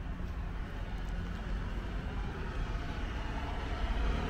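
A road vehicle approaching along the road, its low engine rumble and tyre noise growing louder near the end.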